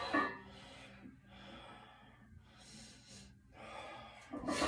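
A man breathing hard in gasps and heavy exhales after a set of barbell back squats, a few separate breaths with a louder one near the end.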